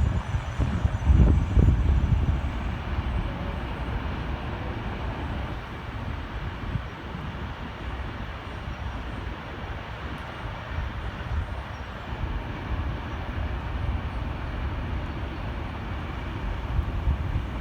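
A train running past on the line, a steady rolling noise, with wind buffeting the microphone in the first couple of seconds.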